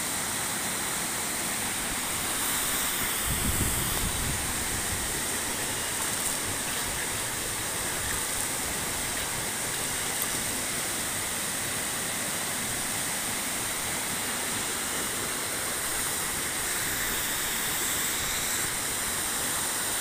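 Waterfall plunging into a rocky pool: a steady rush of falling water.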